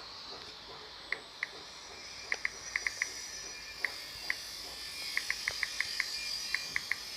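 Crickets chirping in a steady high drone, with about twenty short, sharp ticks coming in irregular groups over it.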